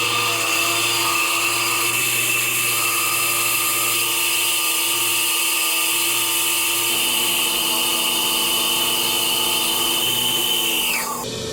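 Electric power tool running at full speed with a steady high whine, taking rust off a saw part. About eleven seconds in it is switched off, and the pitch falls as the motor winds down.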